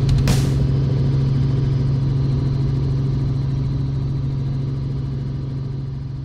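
Helicopter engine and rotors running on the ground, heard from inside the cockpit: a steady, strong low drone that slowly fades out near the end. A brief hiss just after the start.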